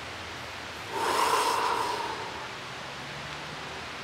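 A man's long forced exhalation, a breathy whispered sound that starts about a second in and fades out over about a second: the voiced breath of the third qigong healing sound, the one for the stomach.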